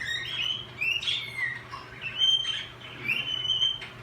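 Cockatiel whistling a song: a run of short rising whistles, then two longer held notes.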